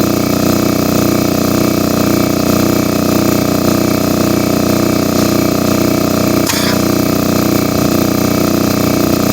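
Harbor Freight air compressor running steadily with a fast, even pulsing, refilling the air supply. A single sharp click about two-thirds through.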